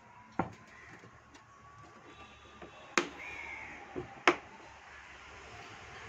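Four sharp knocks and taps, the loudest two about three and four seconds in: a plastic bottle with a fan motor fitted inside being handled and set down on a workbench.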